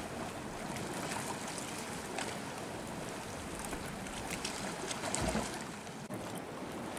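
Steady outdoor noise of the sea washing on the rocks and wind, with faint scattered clicks and a low bump about five seconds in.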